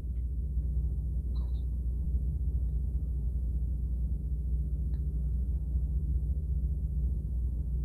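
Steady low background hum, with two faint ticks about a second and a half and five seconds in.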